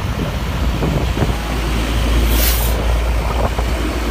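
Heavy truck engine running with a steady low rumble, and a short hiss about two and a half seconds in.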